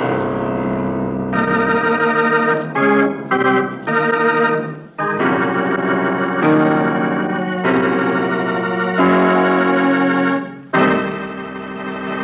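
Organ music cue: a dramatic run of held chords that change every second or so, ending on a new sustained chord after a brief drop near the end, the music bridge that closes the scene before the commercial break.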